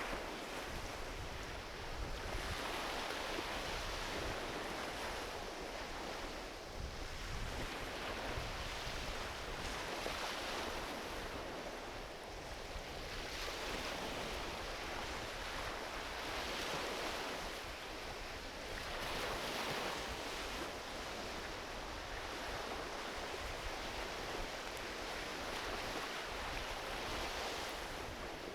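Gentle ocean waves washing onto a beach, the surf swelling and easing every few seconds.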